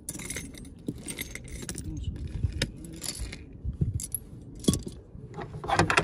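Small metal parts clinking and rattling as a seatbelt anchor bolt and the belt's metal fittings are handled, with irregular sharp clicks, the loudest nearly five seconds in.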